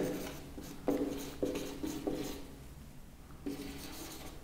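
Marker pen writing on a whiteboard: a few faint, short strokes.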